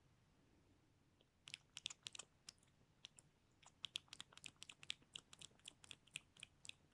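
Close-miked ASMR mouth sounds: a quick, irregular run of small tongue and lip clicks, several a second, starting about a second and a half in.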